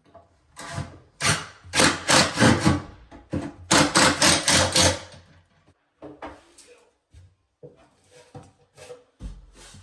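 Quick, rasping strokes of something rubbing on wood, in two fast runs of several strokes each, then fainter scattered knocks and scrapes.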